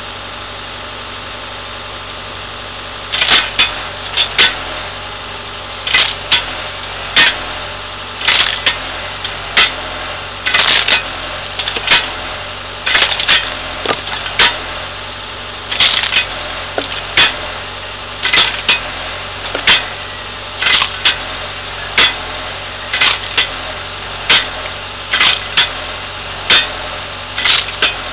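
Hydraulic wood splitter blade chopping firewood rounds: sharp cracks and knocks of the blade striking and splitting the wood, starting about three seconds in and coming roughly once a second, some in quick pairs. Under them the CAT 297C compact track loader's diesel engine runs steadily, powering the splitter's hydraulics.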